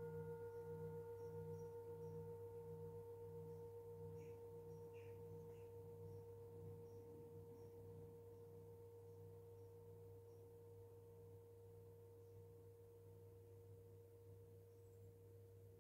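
A metal singing bowl ringing out after being sounded, its steady tone slowly fading, with a low wavering throb beneath it that slowly grows slower.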